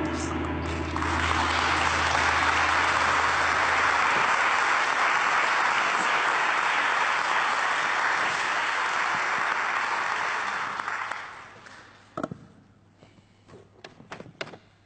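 Audience applauding, swelling in the first second or two and dying away after about eleven seconds. A low held musical tone fades out in the first four seconds. A few soft knocks follow near the end.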